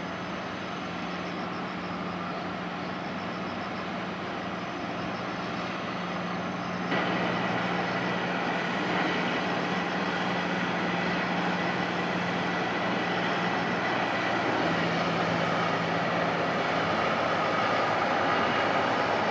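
Steady low engine hum over a wash of outdoor mechanical, traffic-like noise. The sound steps up louder and brighter about seven seconds in, and the hum drops a little in pitch about two-thirds of the way through.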